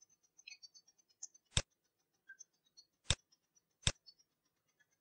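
Three sharp clicks of a computer mouse and keyboard, the last two close together, with faint scattered ticking between them.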